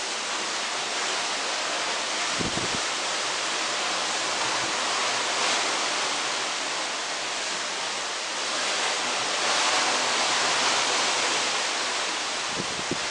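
Steady rush of wind and sea heard from a cruise ship's balcony while under way, with two brief low thumps, one about two and a half seconds in and one near the end.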